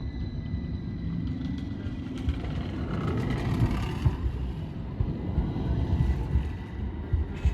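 Electric tram running: a steady high motor whine over a low rumble of wheels on rails, with scattered clicks and knocks.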